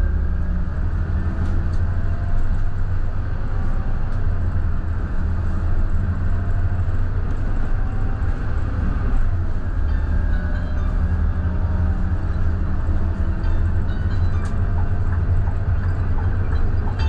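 Scania K320IB bus's nine-litre five-cylinder diesel engine running steadily under way, with a constant low drone and road noise and a few faint clicks.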